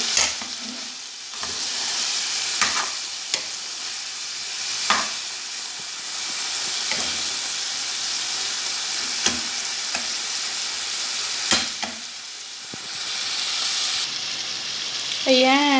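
Mushrooms simmering in a soy-sauce gravy in a frying pan, sizzling steadily as the liquid cooks down. A metal utensil stirs the pan now and then, giving a few sharp clicks against it.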